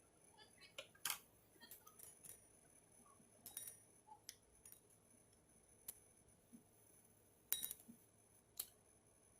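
Near silence with a dozen or so faint, sharp clicks and light taps of small hard objects being handled, the loudest about a second in and a pair near the end.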